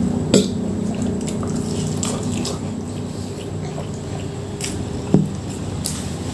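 A person eating nasi padang close to the microphone: wet chewing and small mouth clicks, with two sharper clicks about a third of a second in and just after five seconds. A steady low hum runs underneath.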